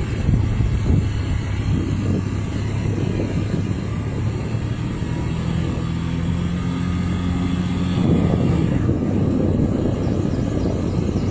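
Vehicle engine and road noise while driving: a steady low drone. A hum from the engine holds steady a little past the middle, and the noise gets slightly louder near the end.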